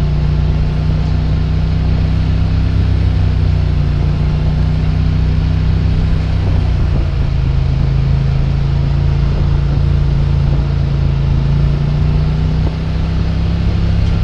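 John Deere 4455 tractor's six-cylinder diesel engine running steadily under load while pulling a mounted cultivator at field speed, with the level dropping slightly near the end.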